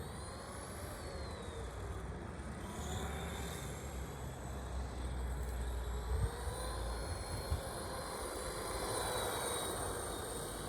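RC car's motor whining as it drives, its pitch rising and falling slowly as the car speeds up and slows down, over a low steady rumble.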